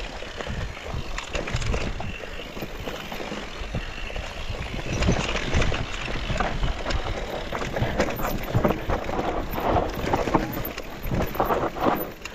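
Mountain bike riding down a dirt forest trail: tyres on the ground and the bike rattling and clattering over bumps.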